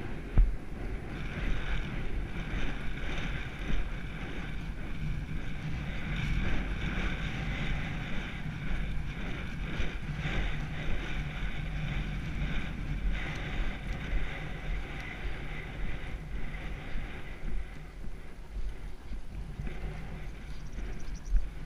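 Wind rushing and buffeting over the microphone of a camera on a galloping racehorse, with the horse's hoofbeats on the dirt track underneath. A single sharp thump about half a second in.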